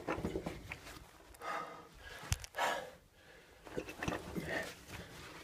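A caver breathing hard in short gasps while crawling through a tight lava tube, with a couple of sharp knocks.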